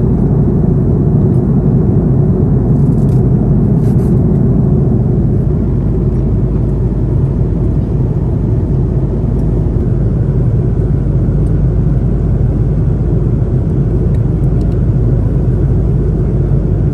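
Steady, loud cabin rumble inside an Airbus A330-200 airliner: engine and airflow noise heard from the main cabin, with a couple of faint clicks about three and four seconds in.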